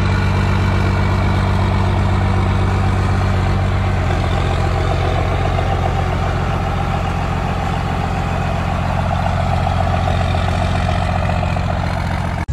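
Pickup truck engine idling steadily, a low, even exhaust rumble.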